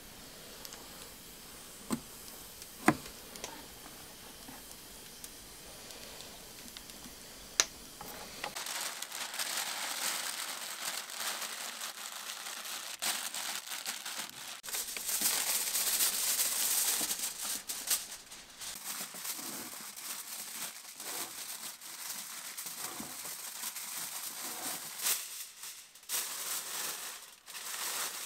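A few sharp clicks, then from about eight seconds in aluminium kitchen foil being pulled off the roll, torn and crumpled over a dish, crinkling on and off.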